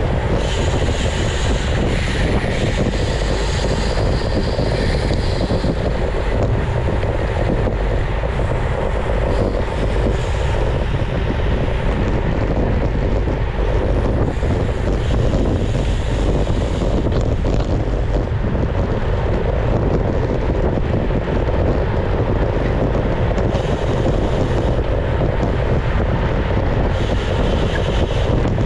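Steady wind rushing over the microphone of a bicycle-mounted action camera, with the deep rumble of road-bike tyres rolling on asphalt.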